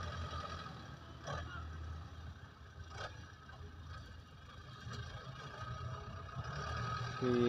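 Distant Belarus 510 tractor's diesel engine running under load as it pulls a disc harrow to level a field: a faint, low, steady drone, a little louder near the end.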